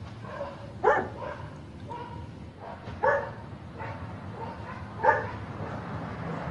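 A dog barking: three single barks about two seconds apart, over a steady low hum.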